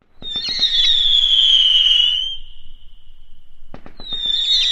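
Fireworks: two whistling shells. Each opens with a few sharp cracks and then a high whistle that falls slightly in pitch over about two seconds. The second starts near the end.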